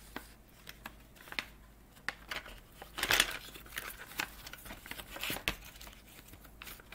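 Crinkling and rustling of a plastic toolkit pouch being handled, with scattered small clicks as items go back into it. A louder rustle comes about three seconds in.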